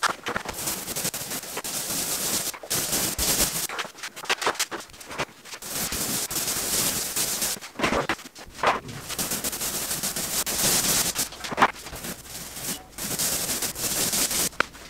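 Paint roller rolling wet paint onto a wall: a crackling, hissing sound in strokes of a second or two, broken by short pauses, with a few brief squeaks about eight seconds in.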